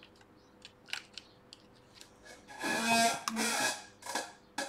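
Light clicks of laptop parts being handled, then about two and a half seconds in a chair creaks twice under a shifting sitter, followed by a sharp click near the end.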